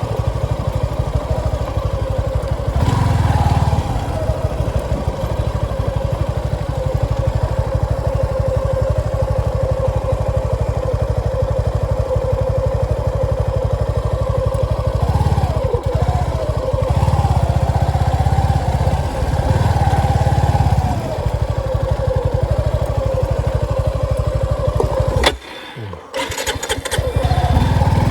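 Motorcycle engine running under way, its pitch rising and falling with changes of speed. The sound drops away sharply for about a second near the end.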